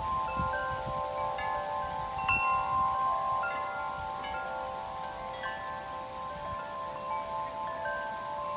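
Wind chimes ringing in gusty storm wind, several tones overlapping and hanging on, with one sharper, higher clink about two seconds in. Low wind buffeting on the microphone in the first couple of seconds.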